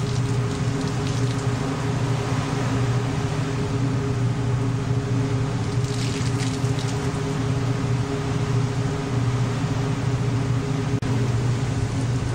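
Ship's engine droning steadily, heard on board, with a wash of water noise over it.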